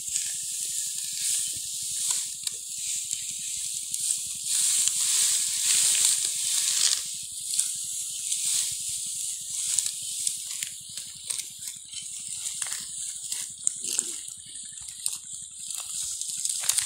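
Dry cut wheat stalks rustling and crackling as they are gathered and tied into sheaves by hand: a steady high hiss with many small crackles.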